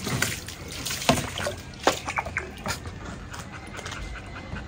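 Water poured from a plastic mug splashing and trickling over a puppy and onto concrete, with a few sharp splashes and knocks in the first half, then quieter dripping.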